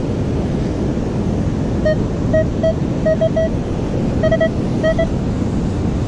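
Metal detector giving short, clean mid-pitched beeps in little groups of two and three as its coil sweeps back and forth over a shallow buried target. Under it is a steady rush of wind on the microphone and surf.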